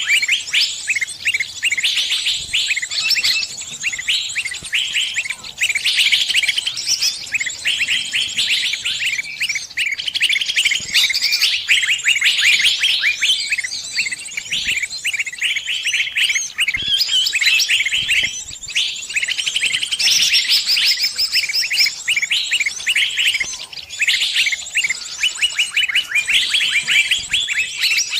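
Dense, rapid, high-pitched chirping and trilling of small birds, with only short pauses between phrases.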